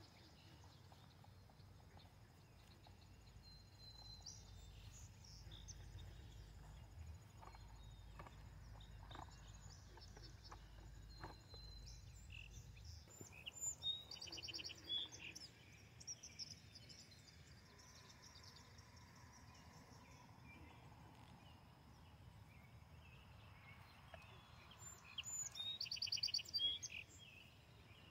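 Songbirds singing faintly, with two louder bursts of quick, repeated trilling notes, one about halfway through and one near the end. A low rumble underneath dies away about halfway through.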